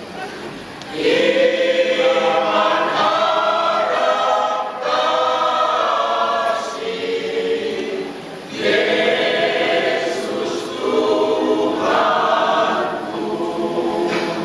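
Church choir of elderly singers singing in several parts, in sustained phrases that swell about a second in and pause briefly twice, ending on a softer held chord.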